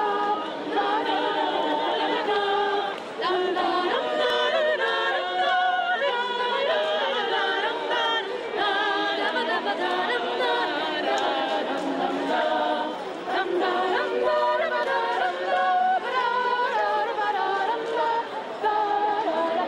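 A women's choir singing a cappella, several voice parts together in held, changing notes.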